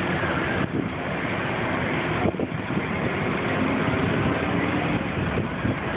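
Steady outdoor city street noise, mostly the rumble of passing traffic.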